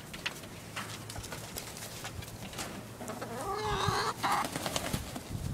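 Chickens clucking, with one longer wavering call of about a second some three seconds in.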